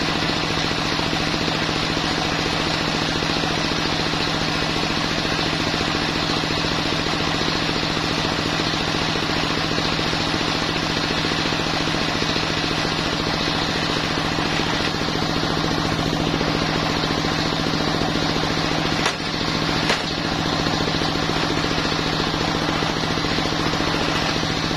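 Stationary diesel engine running steadily, driving a homemade table circular saw whose blade spins freely with no cut. Two short knocks come a few seconds before the end.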